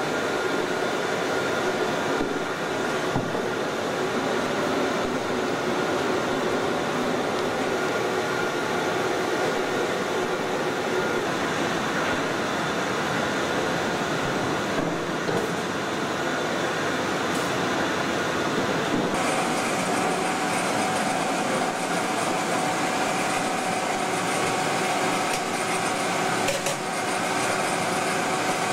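Steady industrial background noise: a constant rush of moving air with a faint steady hum of tones, brightening slightly about two-thirds of the way through.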